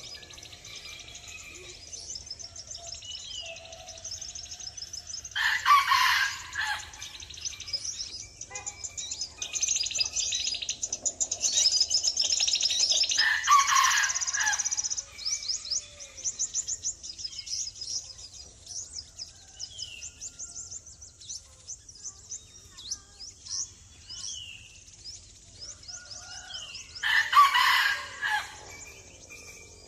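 Birds chirping steadily in high, rapid trills, with three louder calls of about a second and a half each: about six seconds in, about thirteen seconds in, and near the end.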